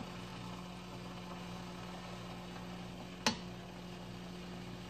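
Pancit of thin rice noodles sizzling faintly in a wok as it is stirred and tossed, over a steady low hum. One sharp clack of a utensil on the wok comes about three seconds in.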